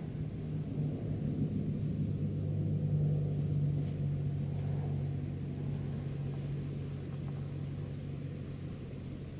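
Racing quadcopter in flight: a low, steady hum with rumble that swells about three seconds in and eases off toward the end.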